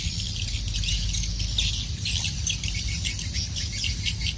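Dense outdoor chorus of short, high-pitched chirping calls, irregular and continuous, over a low steady rumble.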